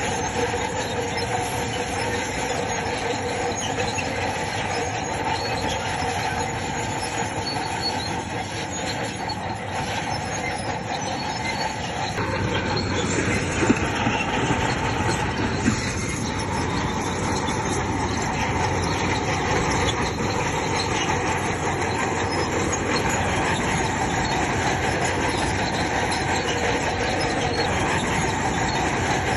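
Crawler bulldozer working, its engine running and its steel tracks squealing steadily. Two sharp knocks a couple of seconds apart about halfway through.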